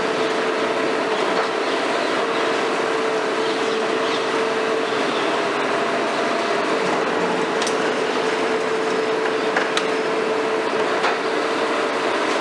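Long-reach demolition excavator (Hitachi 350 converted to a KMC 400) running steadily, a constant machine drone with a held mid-pitched whine, and a few sharp clicks and cracks from the demolition jaw working the concrete in the second half.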